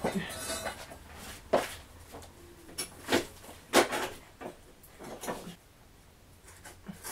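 About half a dozen irregular clunks and knocks from tools and motorcycle exhaust parts being handled, fading to a few faint ticks near the end.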